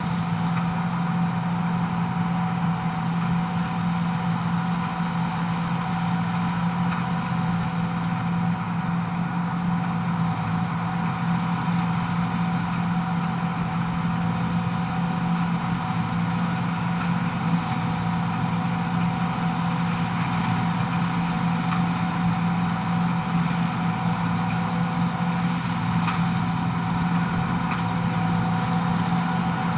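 John Deere 2258 combine harvester running steadily while cutting barley: a constant machine drone with a strong steady hum and a few fixed higher tones, unchanging throughout.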